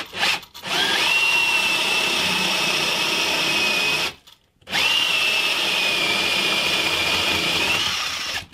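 Cordless drill boring an 18 mm spade bit into a wooden block. A couple of short trigger blips come first, then the motor runs with a steady whine for about three seconds, stops briefly, and runs again for another three and a half seconds as the bit cuts into the wood.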